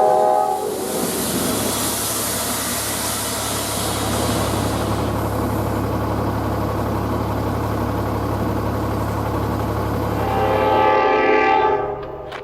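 SEPTA train's K5LA horn chord ends about half a second in, then the train passes close by with a steady low rumble and rushing rail noise. The horn chord sounds again about ten and a half seconds in and stops just before the end, as the train's noise fades.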